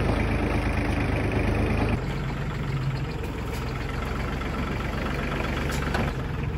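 An engine idling steadily, a low even hum that drops a little in level about two seconds in.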